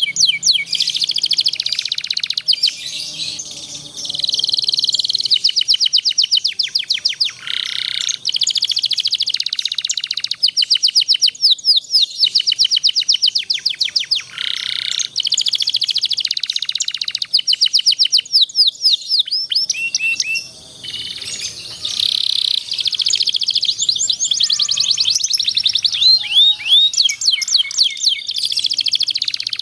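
Domestic canary singing a long, continuous song of fast rolling trills and rapid repeated chirps, broken only by brief pauses.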